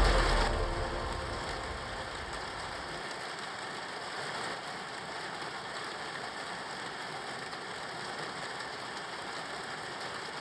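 Steady rain falling, an even hiss, as background music fades out in the first second or so.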